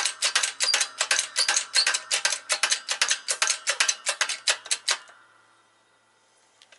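Hydraulic bottle jack on a shop press being pumped by its handle, pressing a polyurethane control arm bushing home: a quick run of sharp metallic clicks and rattles, about six a second, that stops about five seconds in.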